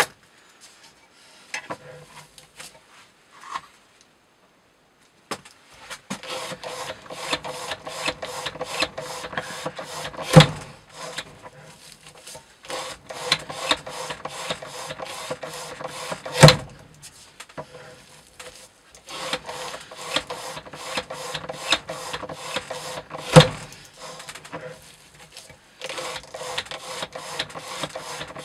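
A Bark River Wilderness Explorer knife in CPM Cru-Wear steel sawing back and forth through rope under a weighted cutting rig, a quick run of rasping strokes. A sharp knock comes about every six or seven seconds as each cut parts the rope and the blade drops onto the rig. It starts about five seconds in after a few small clicks.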